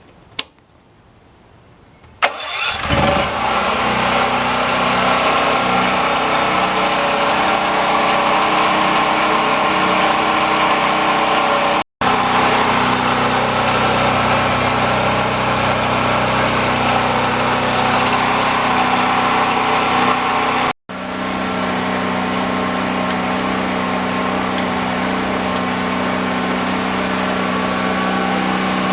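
DuroMax 5500E portable generator's single-cylinder gasoline engine starting about two seconds in, after a single click, then running steadily during its break-in.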